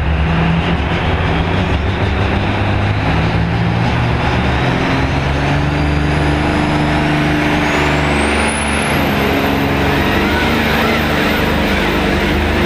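Hot farm class pulling tractor's engine running loud and steady close up, with a thin high whine that climbs in pitch over several seconds and then holds.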